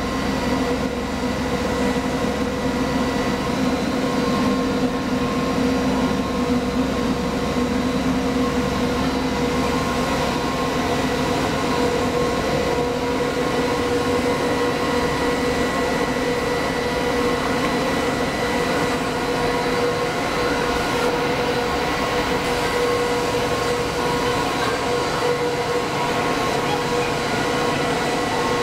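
Intermediate copper wire drawing machine with online annealer running steadily: a constant machine drone with several steady whining tones layered over it.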